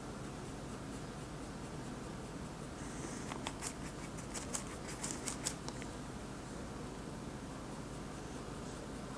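Paintbrush working oil paint on a palette sheet: a cluster of short clicks and scrapes about three to six seconds in, over a steady low background hum.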